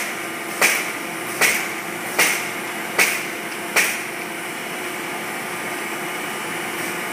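Print-shop production machinery running with a steady hum, and a sharp knock repeating evenly about every 0.8 seconds, five times, that stops about four seconds in, leaving only the hum.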